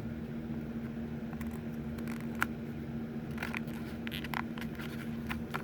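Stiff plastic packaging of a die-cast car two-pack being twisted and pried at by hand: scattered small clicks and crackles over a steady background hum.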